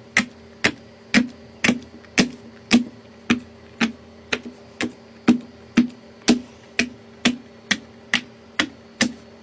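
Fidget toy clicking in a steady rhythm, about two sharp clicks a second, evenly spaced, over a faint steady low hum.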